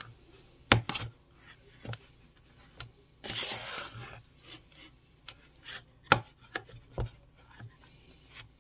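Metal fork stirring and scraping thick biscuit dough in a mixing bowl, with irregular sharp clinks as the tines knock against the bowl's side.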